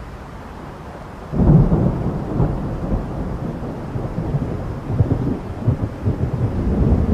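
Thunder. A low rumble breaks into a sudden loud clap about a second in, then rolls on as a deep rumble with a few further cracks.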